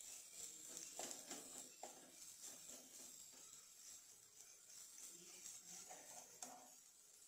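Faint sizzling of chopped vegetables frying in oil in a pan, with a few light clicks and scrapes of a steel spoon stirring them, about one second in, just before two seconds and again near the end.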